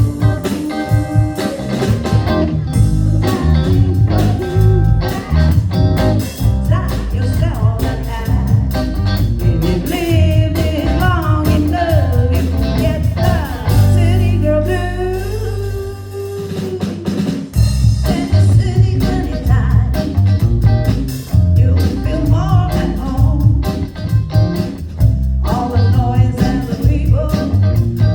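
A blues trio playing live: guitar, bass guitar and drum kit, with a singer's lead vocal. The bass and drums drop back briefly a little past the middle, then the full band comes back in.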